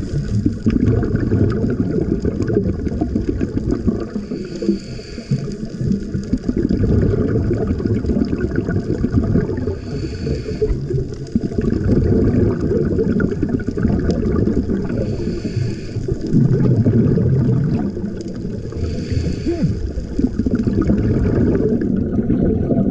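A scuba diver breathing through a regulator, heard underwater: a short hiss roughly every five seconds, with bubbling rumble in between over a constant low water rumble.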